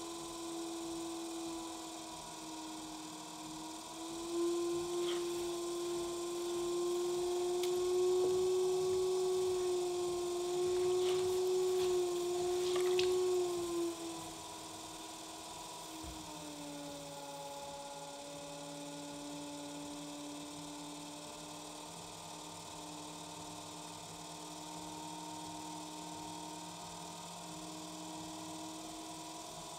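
Electric pottery wheel motor whining at a steady pitch while clay is thrown, dropping to a lower pitch and a little quieter about halfway through as the wheel slows. A few faint taps come in the first half.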